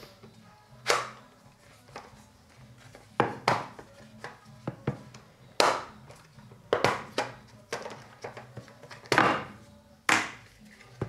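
Hard plastic snowboard binding parts being handled and snapped together without screws. There are a series of sharp clicks and knocks of plastic on plastic and on a glass tabletop, about a dozen at irregular spacing.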